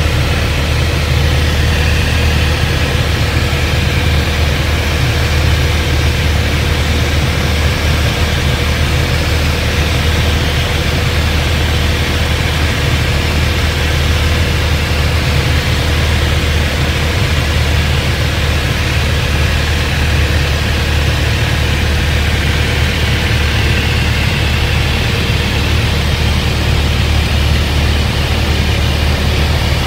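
Cabin sound of a Piper Cherokee 180D's four-cylinder Lycoming O-360 engine with the throttle closed for a power-off glide to landing: a steady low drone under an even rush of airflow.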